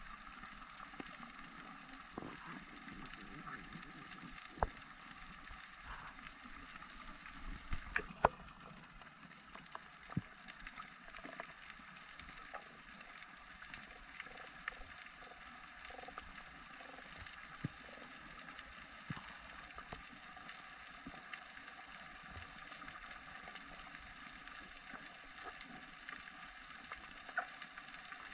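Underwater ambience picked up through a camera housing: a faint steady hiss with scattered sharp clicks and crackles, a few louder ones clustered about a quarter to a third of the way in.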